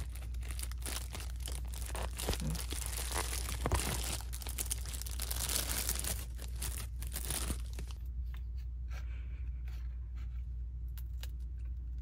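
Clear plastic packaging of smoked fish torn open and crinkled by hand, a dense crackling rustle for about eight seconds. After that it drops to a few scattered light clicks and rustles.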